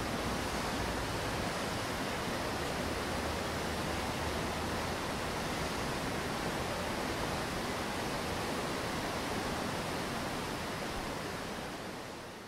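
Water running and splashing down a stepped cascade of stone slabs, a steady rushing that fades out near the end.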